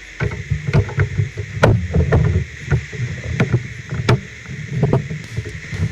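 Plastic Lego pieces being handled and pressed together: a quick, irregular series of sharp clicks and knocks over low rubbing and rustling.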